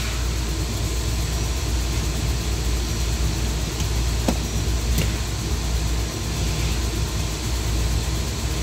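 Steady low mechanical hum of running machinery, with two light clicks about four and five seconds in as plug-in relays in the control cabinet are handled.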